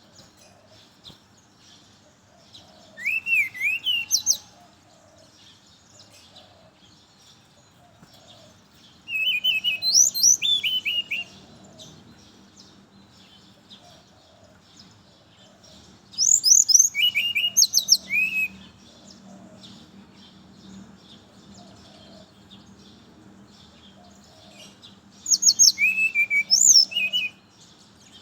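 Brown-chested jungle flycatcher singing: four short phrases of clear, quickly sliding whistled notes, each lasting about two seconds, with pauses of several seconds between them.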